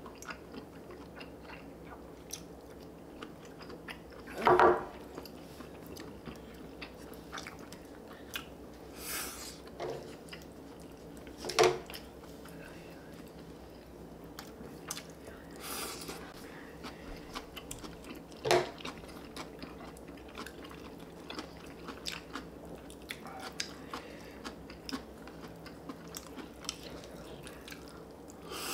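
Close-up chewing of spicy stir-fried chicken dakgalbi, with many small clicks from chopsticks and spoons. A few louder short mouth sounds stand out about four, nine, twelve and eighteen seconds in.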